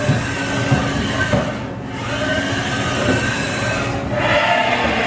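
Steady running of powered machinery, with several held whining tones and a few short knocks in the first second and a half; the sound changes and grows a little louder about four seconds in.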